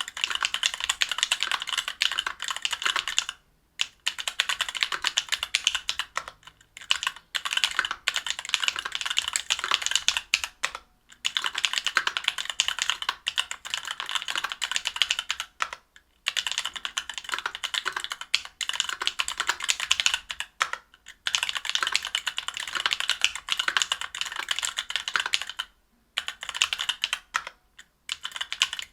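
Fast, continuous typing on a Linworks Dolphin mechanical keyboard with stock Alphakeys Blue Dusk Panda 62 g linear switches, an aluminium plate and GMK keycaps, broken by brief pauses every few seconds.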